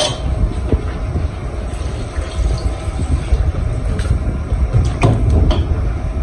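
Water poured from a plastic jug into a pot of sauce on a gas stove, over a steady low rumble, with a few light knocks of the pot and utensils.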